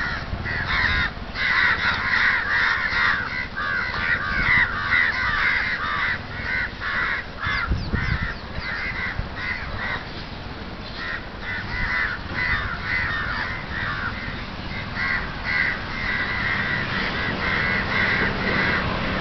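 A flock of crows cawing, many calls overlapping, with a sparser stretch near the middle.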